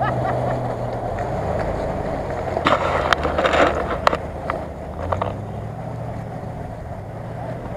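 Off-road 4x4 SUV engine running steadily as it wades through a deep muddy puddle, with water sloshing. A cluster of sharp clicks and knocks comes in the middle.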